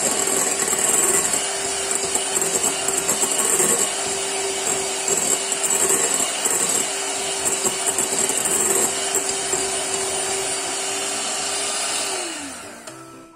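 Electric hand mixer running steadily, its beaters whipping egg whites and sugar into meringue in a glass bowl. About twelve seconds in it is switched off and the motor's hum falls in pitch as it spins down.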